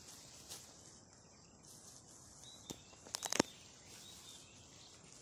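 Quiet outdoor background with a faint steady high hiss. A little over three seconds in, a quick run of sharp clicks and crackles is the loudest thing, with a couple of faint short chirps around it.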